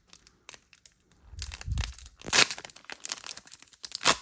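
Foil booster-pack wrapper being handled, crinkled and torn open, with a loud sharp rip about two and a half seconds in and scattered crackling after it.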